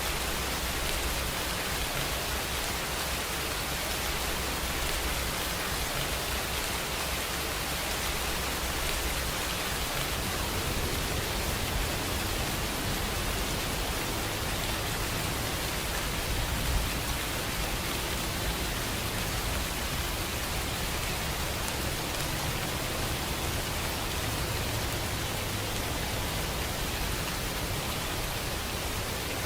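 Steady rain, an even hiss of falling drops with a low rumble underneath.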